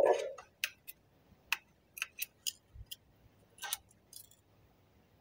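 Flat screwdriver prying and twisting around the stuck metal ring of a split transfer case rear output seal, making short, irregular metal clicks and scrapes, about ten in all.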